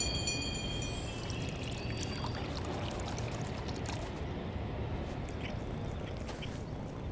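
A steady hiss like pouring or trickling water, with scattered faint clicks and ticks.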